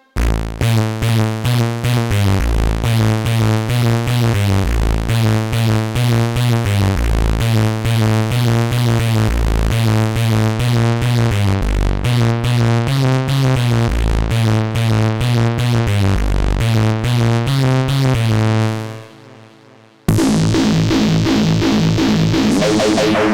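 Dreadbox Artemis synthesizer playing its 'Evil Wasp Bass' preset: a fast, rhythmic bass line of rapidly repeating notes, fading out about nineteen seconds in. A different synth sound starts shortly after.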